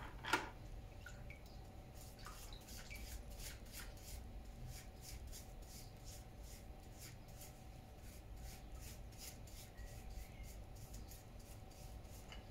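Faint brushing and dripping water as a Solo backpack sprayer's diaphragm is scrubbed with a small brush over a bucket of water: a run of small clicks and drips over a low steady hum.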